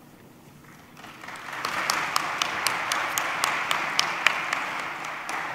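Audience applauding, building up about a second in and easing off near the end, with a few sharp, close individual claps standing out.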